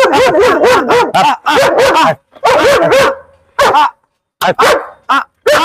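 German Shepherd barking aggressively in a guard response to a mock threat against its owner: a fast run of barks for about two seconds, then single barks with short gaps.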